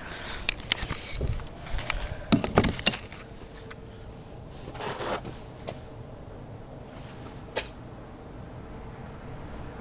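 Camera handling noise: a flurry of clicks, knocks and rustling in the first three seconds as the camera is moved and set down, then a quiet outdoor background with a faint steady hum and a single sharp click later on.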